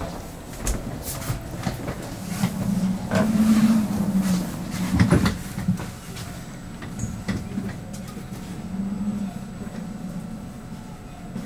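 Interior noise of a Stockholm commuter train carriage: a low hum that swells and fades, with scattered clicks and knocks, loudest in the middle.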